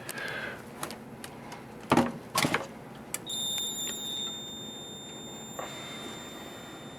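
Clicks and two sharp knocks as a fire alarm control panel is plugged in, then about three seconds in the panel's piezo sounder starts a steady high-pitched tone, loudest for its first second, signalling the panel powering up from a cold start.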